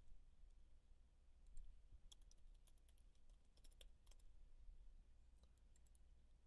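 Faint clicking of computer keyboard keys: scattered keystrokes in an otherwise near-silent room.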